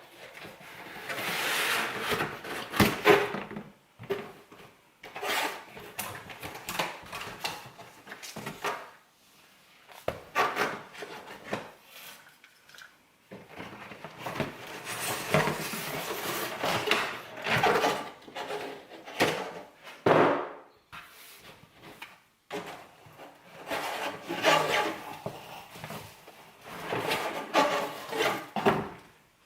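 Packaging of a new coffee machine being opened and handled: rustling and scraping in irregular bursts, with sharp knocks and clunks, broken by short pauses.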